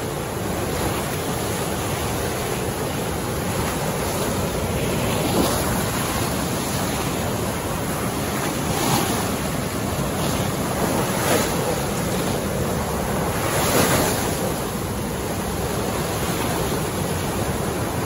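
Heavy floodwater rushing out through a reservoir's fully opened sluice gates, a steady dense churning of turbulent water that swells louder a few times. The current is very strong.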